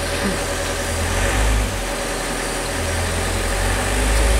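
A motor running steadily, with a low rumble that swells twice.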